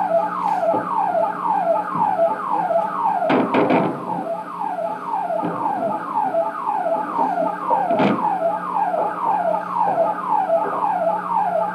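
Electronic siren sounding in rapid, repeated falling sweeps, about three a second, over a steady low hum. A cluster of sharp knocks breaks in about three and a half seconds in, and a single sharp knock about eight seconds in.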